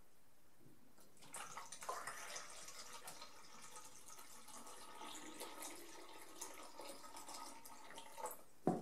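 Water poured from a plastic bottle into a film developing tank through its light-tight lid, a faint steady trickling that begins about a second in: the tank being filled for one of the wash rinses after fixing. A short louder sound comes near the end.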